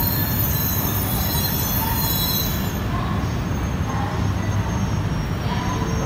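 E3 series Tsubasa shinkansen rolling slowly through the station, a steady low rumble of wheels and motors with thin high-pitched squealing that fades out about two and a half seconds in.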